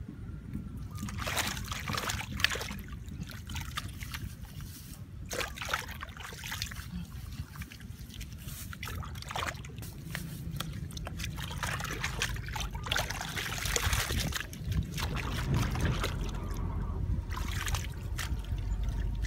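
Bare hands scooping wet mud and muddy water out of a hole and packing it onto a mud bank: irregular splashing and sloshing.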